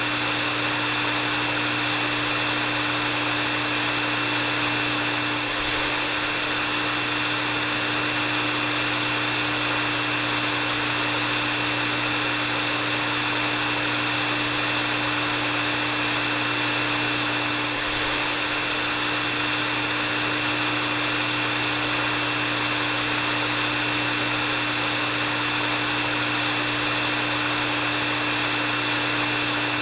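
Hair dryer running steadily: an even rush of blown air with a steady motor hum and a high whine under it.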